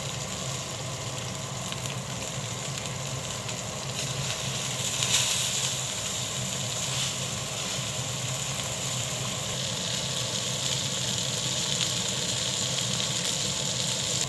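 Ribeye steak searing in hot oil in a wok over a gas flame at maximum heat: a steady sizzle with small crackles, and a louder flare of spattering about five seconds in.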